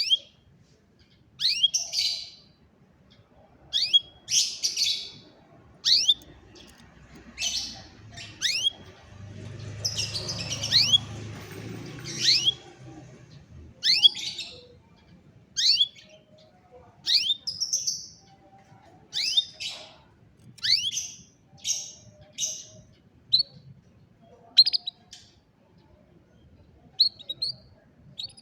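Domestic canary giving short, sharp chirping calls, each a quick up-and-down sweep, repeated about every second. A low rumble rises underneath for a few seconds about a third of the way through.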